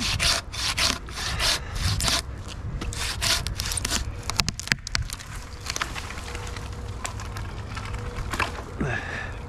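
Silky hand pruning saw cutting through white pine with steady push-pull strokes, about two a second. After about two seconds the strokes turn irregular and stop, with a sharp click a little before halfway and quieter rustling after.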